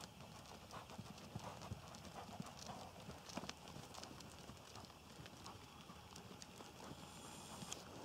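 Faint hoofbeats of a Connemara pony mare trotting on a sand arena: soft, irregular thuds.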